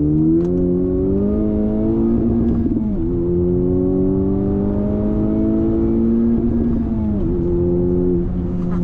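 Honda Civic Type R's 2.0-litre turbocharged four-cylinder accelerating hard. The engine rises in pitch, drops sharply at an upshift about three seconds in, climbs again, and drops at a second upshift about seven seconds in.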